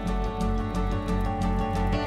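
Instrumental background music with sustained notes over a steady plucked pulse.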